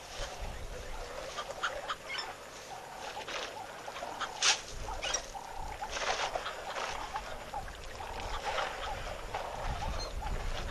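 Busy waterhole soundscape of many short, repeated waterbird calls and chirps, with a sharper, louder call about four and a half seconds in and a low rumble coming and going underneath.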